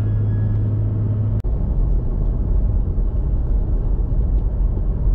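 Toyota Tacoma pickup driving on a paved road: steady low road and engine rumble, with a brief drop about one and a half seconds in.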